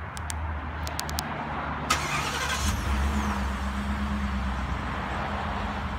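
Ford F-150 pickup started by its key fob's remote start: a few light clicks, a short crank about two seconds in, then the engine settles into a steady idle.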